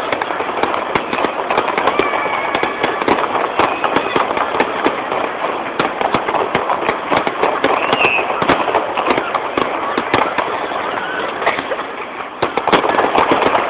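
Aerial fireworks going off: a rapid, continuous crackle of many sharp cracks and pops from bursting shells, with a denser flurry of cracks near the end.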